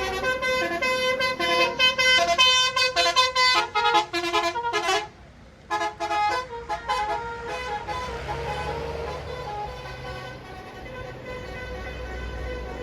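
Bus telolet horn (Basuri multi-tone horn) playing a quick melody of short, rapidly changing notes. It breaks off about five seconds in, plays a few more notes, then stops. A steady rush of engine and road noise follows.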